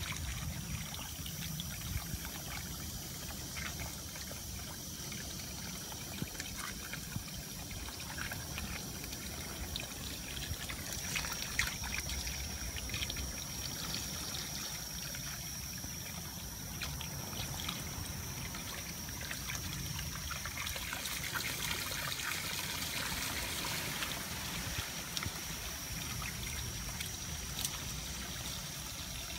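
Water from a garden hose trickling and pouring onto wet soil, with small splashes and patters as a raccoon paws in the stream.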